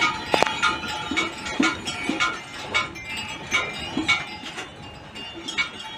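Stemmed wine glasses hanging in a rack clinking and ringing against each other over and over, shaken by an earthquake.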